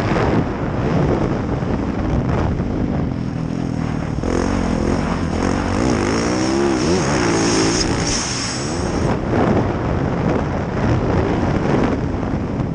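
Yamaha YZ450F motocross bike's 450 cc single-cylinder four-stroke engine, its pitch rising and falling again and again as the throttle is worked on and off.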